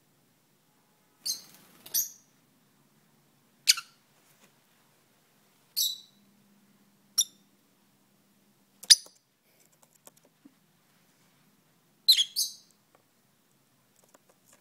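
A pet lovebird chirping: short, sharp, high-pitched calls, about eight of them at uneven intervals, two of them doubled in quick succession.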